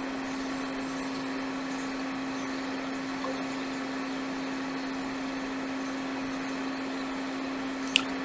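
Hot air rework station blowing steadily, a constant airflow hiss with a steady hum from its fan, used to desolder a diode from a laptop motherboard. A single sharp click near the end.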